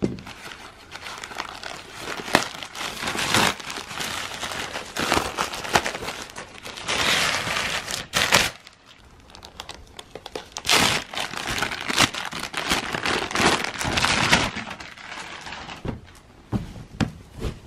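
Plastic poly mailer and packaging crinkling and rustling as a package is opened by hand and its contents pulled out. It comes in irregular bursts, louder for a few seconds in the middle, with a sharp snap near the middle.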